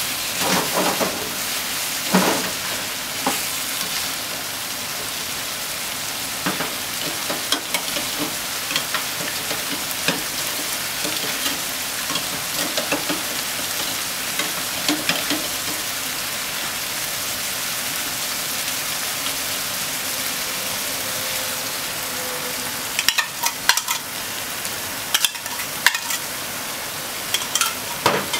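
Ground pork, onion and sliced eggplant sizzling steadily in a frying pan, with a spatula scraping and knocking against the pan as the food is stirred, mostly in the first few seconds and again near the end.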